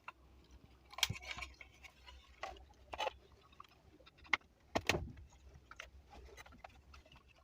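Scattered clicks and light knocks of a cordless doorbell's plastic housing and parts being handled and fitted back together, the strongest about five seconds in.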